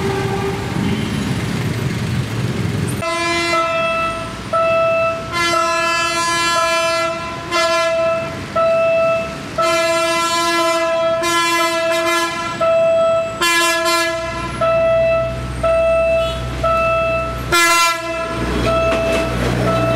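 PNR diesel train sounding its horn in a run of short, pitched blasts, about one a second, starting about three seconds in as it approaches a level crossing. A low engine rumble comes in during the last few seconds as the train reaches the crossing.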